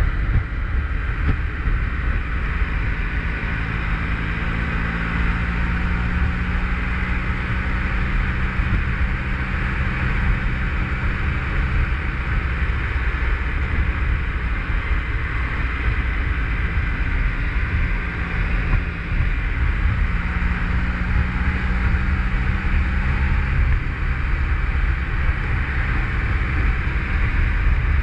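Motorcycle engine running steadily at road speed, under heavy wind rush on the microphone.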